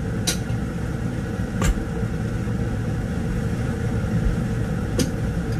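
Steady low rumbling noise from the stove as spinach cooks in a pan of liquid, with three short sharp ticks.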